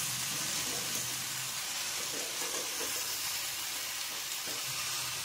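Shredded cabbage sizzling in a frying pan as a metal spatula stirs it into the fried spices, with faint scraping of the spatula along the pan.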